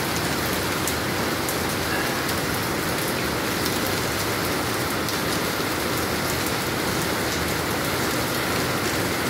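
Heavy rain pouring down: a steady, even hiss of rainfall on the wet pavement and roofs, with scattered sharp taps of nearby drops.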